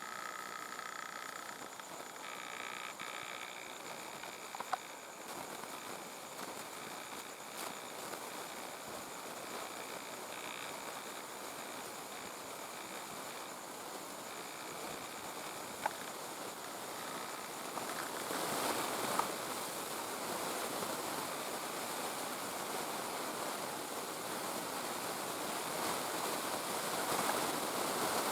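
Faint outdoor ambience: a steady chorus of high tones over hiss, with a few soft clicks, the hiss swelling a little in the second half.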